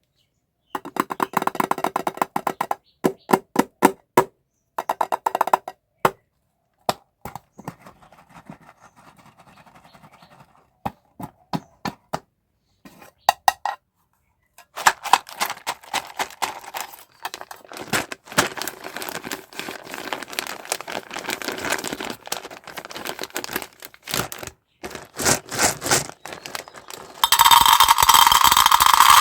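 Candy and toy packaging handled and opened by hand: runs of sharp clicks and taps in clusters, separated by short silences. Near the end comes a loud, noisy burst lasting about two seconds.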